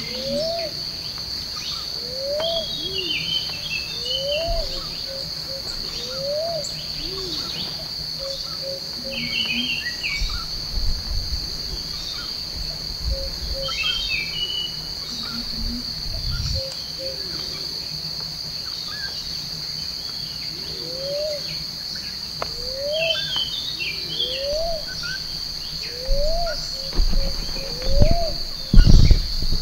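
Tropical forest ambience: a steady high insect drone, with scattered bird chirps and a low rising call repeated about once a second, which stops for a while in the middle. Several low thuds come near the end, the loudest just before it ends.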